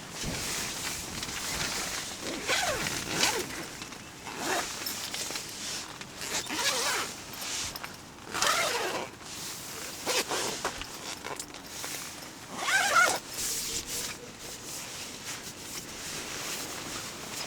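A cat meowing again and again, about six short meows, the loudest near the end, over a steady rasping rustle.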